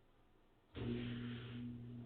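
Samsung WF45K6500AV front-load washer starting up abruptly about three quarters of a second in: a steady hum with a whooshing noise that swells and fades.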